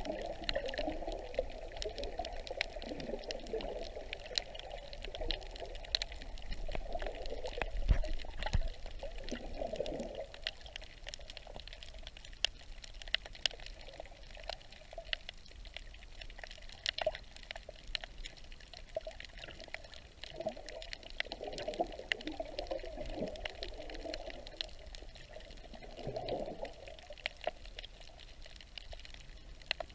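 Underwater sound through a submerged camera: water gurgling and sloshing in swells every few seconds, over a steady scatter of faint sharp clicks. A dull thump about eight seconds in is the loudest moment.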